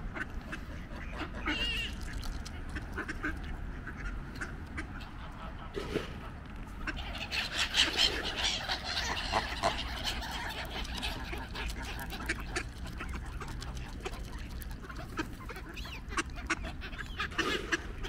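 Geese honking and ducks quacking, loudest from about seven to ten seconds in, with scattered short clicks throughout.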